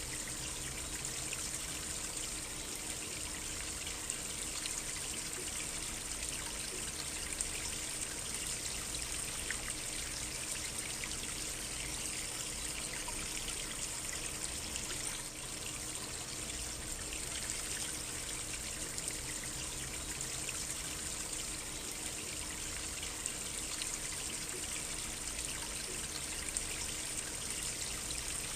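A small stream of water trickling steadily, with fine splashing.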